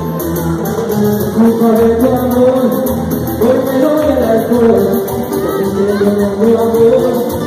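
Live band music: electric guitar and percussion playing, with a singer's voice over them.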